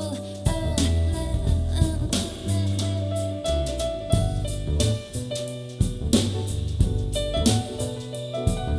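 Instrumental music with a drum kit, a bass line and held melodic notes, played back through in-ear monitors for a sound comparison.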